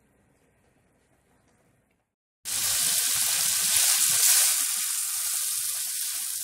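Near silence at first, then, starting abruptly about two and a half seconds in, cut-up hot dog sausages and garlic sizzling loudly and steadily in hot oil in a nonstick frying pan as a spatula stirs them.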